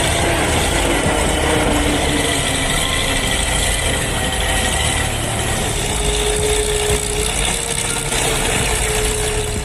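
Heavy vehicle's engine running steadily, with a faint steady whine joining in during the second half.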